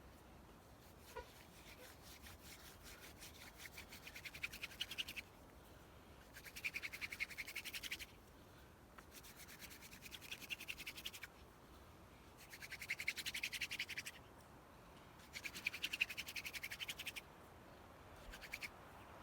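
Hand drill friction fire: a wooden spindle spun back and forth between the palms, grinding in a hearth board. There are about five bouts of fast, dry rubbing strokes, each a second or two long with short pauses between, and a brief one near the end. This is the first burn, seating the spindle's socket before the notch is cut.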